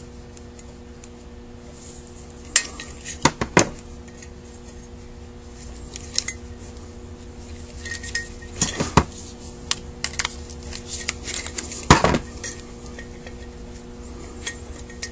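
Metal parts of a Carter WA-1 carburetor being handled on a workbench during disassembly: irregular clinks and knocks of metal on metal and on the bench, the loudest about three-quarters of the way through.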